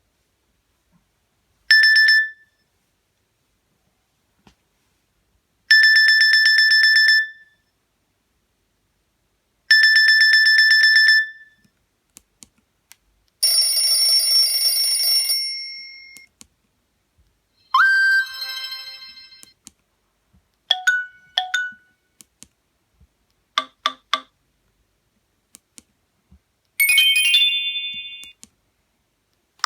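Nokia Asha 302 playing a string of short ringtone and alert tones one after another, with silences between: the same buzzy beep three times about four seconds apart, then a run of different short tones and chimes.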